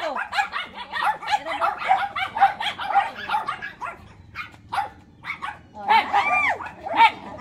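Excited dog yipping and barking rapidly, several short calls a second, thinning out midway, then a few long rising-and-falling whines about six seconds in.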